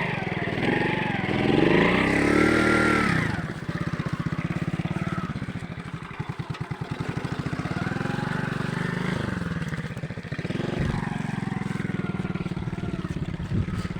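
Alpha moped's single-cylinder four-stroke engine running. It revs up and down over the first three seconds, drops to a slow, uneven idle around the middle, then picks up revs again.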